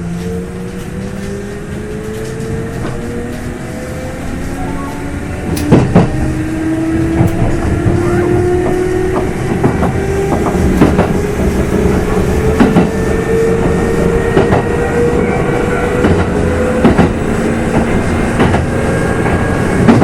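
Kintetsu 2800 series electric train heard from inside a motor car as it accelerates. The traction motor and gear whine rises steadily in pitch, and the wheels clack over rail joints, the clacks growing louder from about six seconds in.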